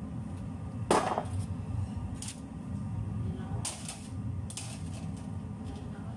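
Metal clanks and clinks of a heavy pot being lifted off a gas burner and a round metal plate being set down on the burner grate. One loud clank about a second in, then a few lighter clinks, over a steady low hum.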